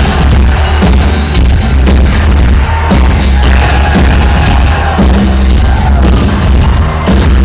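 Electro-industrial band playing live through a concert hall PA, recorded on a cell phone in the crowd: loud, dense music with a heavy, steady bass and a muddy, not-so-great sound.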